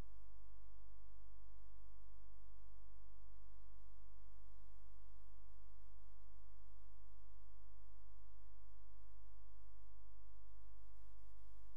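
Steady low electrical hum with a buzz of even overtones above it; nothing else stands out.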